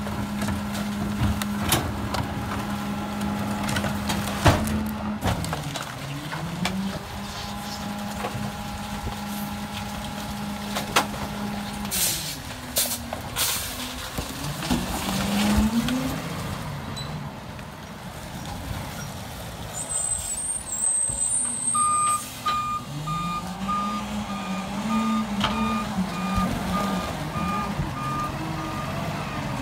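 Freightliner M2106 diesel engine held at raised revs, its pitch dropping and climbing again several times as it drives the hydraulics of the Heil Durapack 5000 rear loader's packer through its cycle, with a few metal clanks. About two-thirds of the way through comes a brief high hiss of the air brakes, then the truck's backup alarm beeps steadily.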